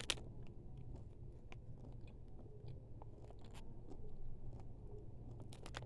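A person chewing candy-coated chocolate candies (orange cream M&M's), with faint, scattered crunches and mouth clicks.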